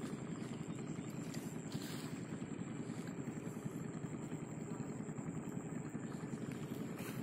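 Steady low rumble of a motor running unseen, unchanging throughout, with a thin steady high whine and a few faint clicks.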